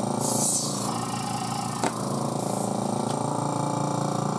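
Small 2.5 CFM vacuum pump running steadily. A short hiss near the start, a sharp click about two seconds in and another brief hiss come as the aluminium faceplate with its foam sheet is fitted to the vacuum chuck on the lathe spindle.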